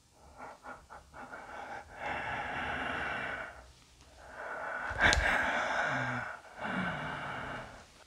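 A person breathing heavily close to the microphone in long breaths, with a few short rustles at the start and one sharp click about five seconds in.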